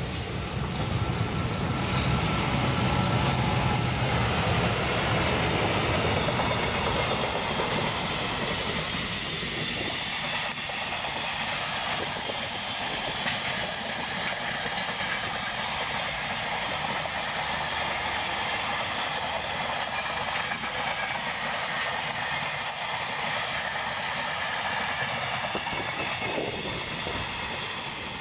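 Electric-locomotive-hauled freight train passing close by on the track. A heavier low rumble in the first ten seconds gives way to a steady rolling roar of the freight wagons going past.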